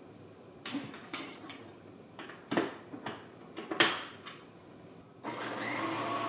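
Plastic parts of a food-processor attachment clicking and knocking as they are handled and fitted together: half a dozen separate clicks and clunks. A steady hum starts about five seconds in.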